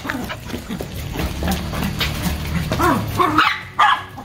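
Dogs giving short play barks and yips while chasing a flirt-pole lure, with a cluster of louder barks in the last second or so.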